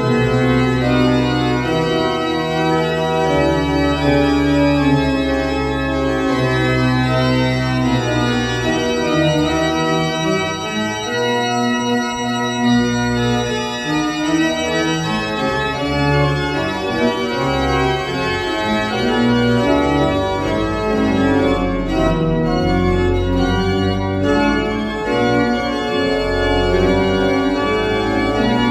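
Rebuilt 1910 Rieger pipe organ, now a 26-stop baroque-type instrument, playing an improvisation: full held chords that change every second or two over a deep sustained bass, steady in loudness and unbroken.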